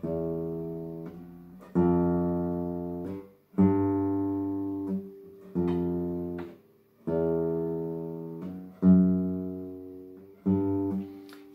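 Nylon-string classical guitar playing seven single plucked notes, one every one and a half to two seconds. Each note is cut short just before the next pluck, leaving a brief gap of silence between notes: the sign of the fretting finger landing too early and damping the string.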